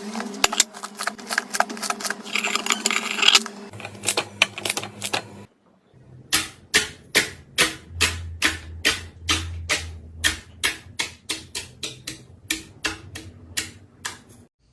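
Slime being pressed and worked by hand, giving off sharp clicks and pops: first a fast, irregular clatter, then after a short break an even series of about three clicks a second.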